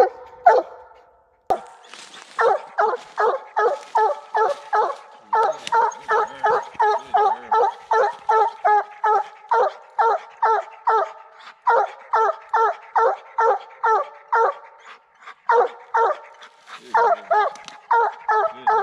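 Redtick coonhound barking treed at a raccoon up the tree: a fast, steady run of barks, about three a second, starting about two seconds in, with a few short breaks.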